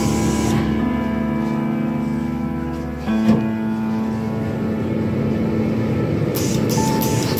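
Background music of sustained keyboard or organ chords, changing chord about three seconds in. A short hiss comes in near the end.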